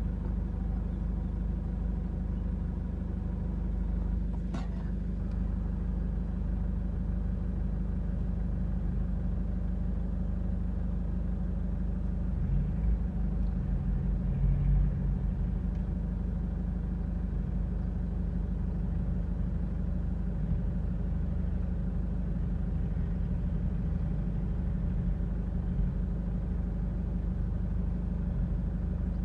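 Off-road 4x4's engine running steadily at low revs, with a brief rise in revs and loudness about 13 to 15 seconds in.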